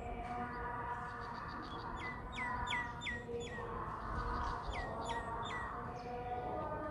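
A bird calling in quick, sharp chirps that fall in pitch: a run of five, then a run of three about a second later, at about three a second. Steady held tones sound behind them.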